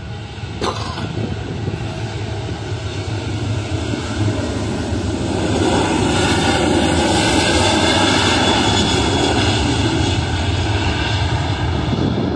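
An airliner's engines passing, a steady rumble that swells to its loudest about two-thirds of the way through and then eases slightly. A brief click comes near the start.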